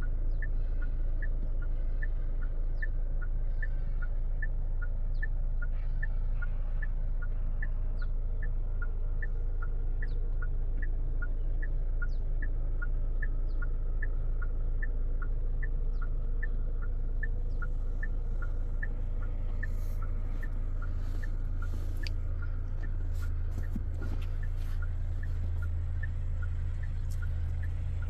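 Chery Tiggo 8 Pro Max's electronic warning chime repeating steadily, two alternating notes about twice a second, over the low steady hum of the engine idling. Scattered clicks and knocks join from about two-thirds of the way through.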